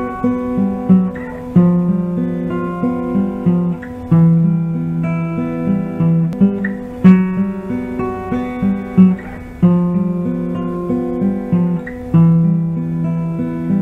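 Background music played on acoustic guitar, a run of plucked notes and chords.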